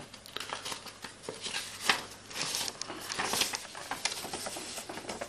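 A sheet of printer paper being handled and unfolded, rustling and crinkling in several short rustles.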